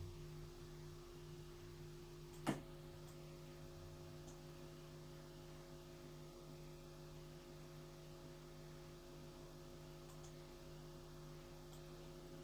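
Faint, steady hum of several tones from the Medion 65" TV's speakers, the resonant interference noise being tested. A sharp click comes about two and a half seconds in, and a few higher tones join the hum after it.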